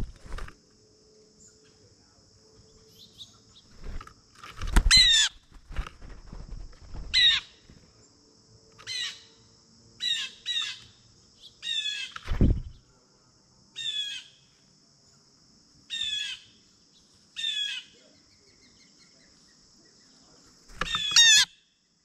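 A bird close by calls about a dozen times, each a short downslurred note with overtones, every second or two. Heavy wingbeats and landings thump on the feeder tray a few times as birds come and go, over a faint steady insect drone.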